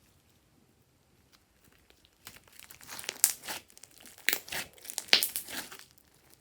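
Glossy slime being worked by hand, giving a run of sticky crackles and pops that starts a couple of seconds in and stops shortly before the end.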